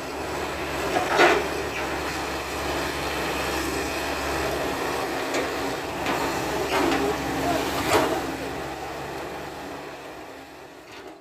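Hydraulic excavator's diesel engine running steadily as its bucket handles coconut palm fronds, with sharp knocks about a second in and twice more around seven and eight seconds in. The sound fades away near the end.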